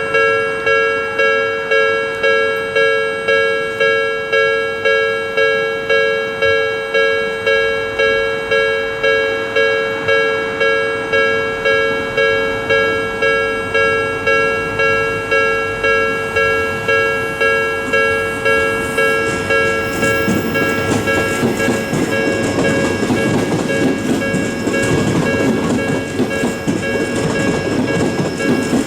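Japanese level-crossing electronic warning bell ringing in a steady, even repeat, about one and a half strokes a second. About twenty seconds in, an Odakyu 3000-series train begins passing under the bell, its wheels rumbling and clacking over the rails.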